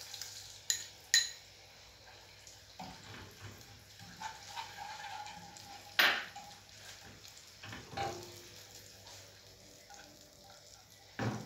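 Metal spoon clinking against a small glass bowl and a saucepan while liquid is scraped into the pan and the mixture is stirred: a few light clicks at first, a sharp clank about halfway through, and another knock a couple of seconds later.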